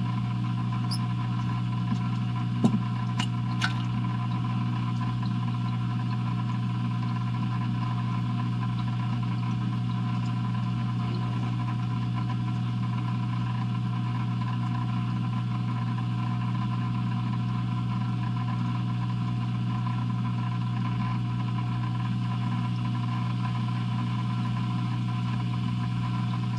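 Steady hum of an aquarium's hang-on-back filter motor running, with three or four sharp clicks about three seconds in.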